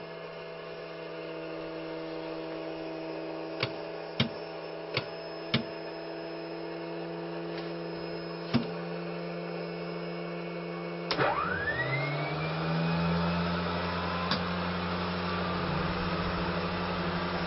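Mi-2 helicopter's onboard electrics running on battery power: a steady electrical hum, broken by several sharp switch clicks. About eleven seconds in, a click is followed by a whine rising steeply in pitch as an onboard electric unit spins up, and the hum then runs louder and steady.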